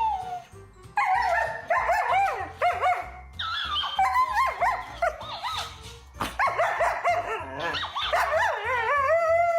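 A dog yipping, barking and whining in quick high-pitched calls that bend up and down, over background music with a steady bass beat.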